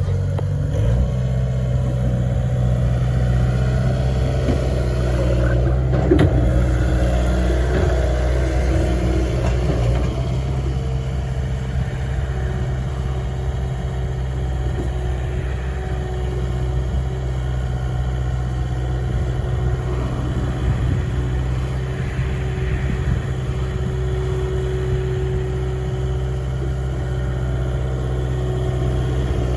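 Skid steer loader's diesel engine running steadily, with a single sharp knock about six seconds in.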